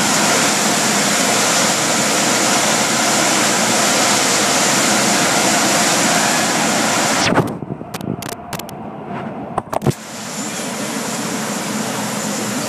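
Car wash air dryer blowers running with a loud, steady rush of air. About seven seconds in the rush drops away abruptly, with a few short bursts, and then a quieter rush comes back.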